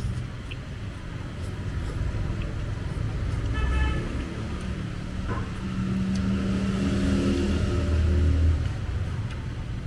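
Road traffic going past: a steady low engine rumble, a brief horn toot about three and a half seconds in, and a vehicle engine that swells and passes close near the end.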